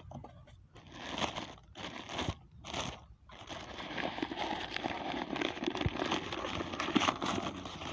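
Packaging crinkling and rustling as a new diesel-engine cylinder sleeve is unwrapped from its box: a few short rustles, then a continuous crackling from about three seconds in.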